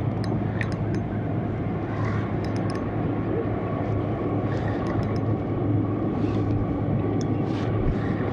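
Steady rushing outdoor noise at the sea shore, with a constant low hum and a few faint, irregular high ticks.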